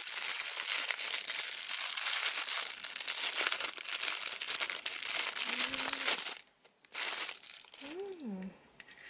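A plastic blind bag being torn open and crinkled by hand, a dense crackling that runs for about six seconds and stops suddenly, then one more short crinkle. A short voiced exclamation comes near the end.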